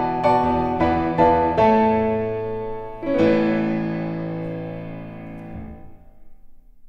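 Piano playing the closing bars of a choral song's accompaniment: a few repeated chords about twice a second, then a final chord about three seconds in that rings on and fades away.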